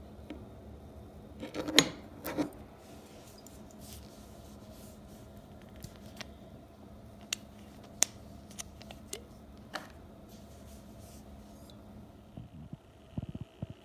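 A small Jack Daniel's glass bottle and its plastic screw cap being handled and twisted open. A loud burst of crackling clicks comes about two seconds in, then scattered light clicks and taps, over a faint steady low hum.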